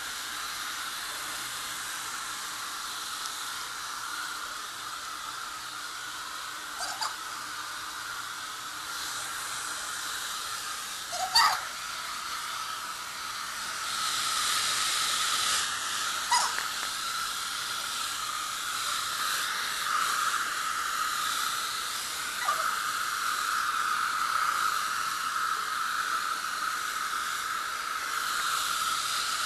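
Hair dryer blowing steadily, a little louder from about fourteen seconds in. A few brief squeaky sounds cut through it, the loudest about eleven seconds in.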